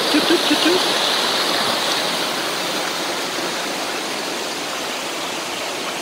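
Small waterfall rushing and splashing over rocks into a rocky stream, a steady noise that eases a little after the first couple of seconds.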